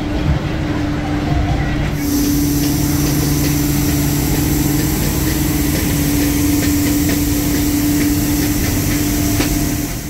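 Street-sweeping machines running: a steady engine drone, joined about two seconds in by the loud hiss of the rotating brushes and suction.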